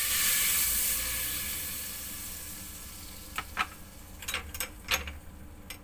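Hot oil in a stainless steel pot sizzling as dark soy sauce is poured in. The sizzle is loudest in the first second and dies away over the next two. After that come a few short, light clicks and knocks.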